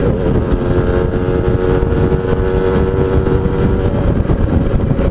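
Suzuki Tornado GS motorcycle engine running at a steady speed on the road, a steady drone, under a heavy rumble of wind on the microphone.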